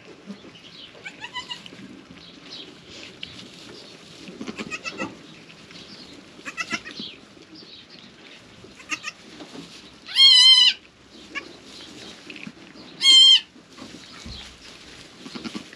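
Newborn goat kids bleating: a few short, faint cries, then two much louder, quavering bleats in the second half.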